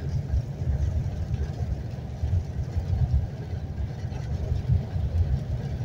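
Steady low rumble of tyre and wind noise inside the cab of a Mercedes-Benz eActros electric truck driving at speed on a wet motorway.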